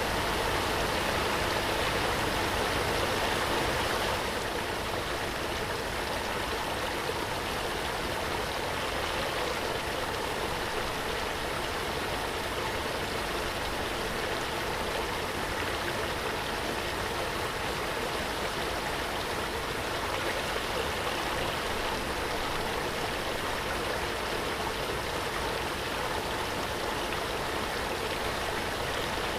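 Waterfall: a steady rush of falling water, with a slight drop in level about four seconds in.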